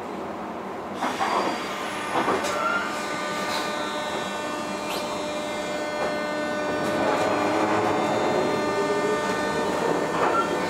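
JR West 201 series electric train running, heard from on board as it picks up speed after departing a station. The steady whine of its chopper control sits under a motor tone that slowly rises and a few sharp rail clicks, and the sound grows slowly louder.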